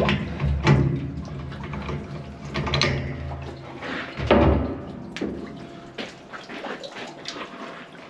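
Steel pipe wrench and adjustable wrench clanking as they are handled and laid on top of a steel oil tank: a run of metallic knocks a second or two apart. A low hum under the first half stops about halfway through.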